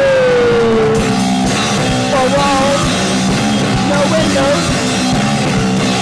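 Goth rock song played by a band, with a melody that slides down in pitch over the first second.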